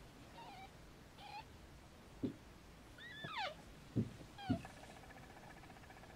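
Newborn kittens mewing in short, high, falling squeaks: two brief ones in the first second or so, a longer one about three seconds in and another about four and a half seconds in, with a few soft thumps among them. A faint steady pulsing tone comes in near the end.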